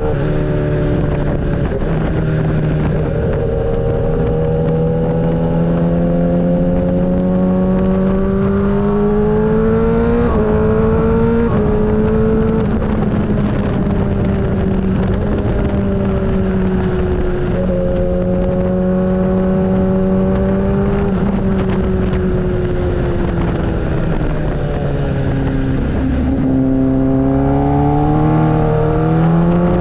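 Motorcycle engine running under way, its note slowly rising and falling with a few sudden steps in pitch as the gears change, over a steady low rush of noise.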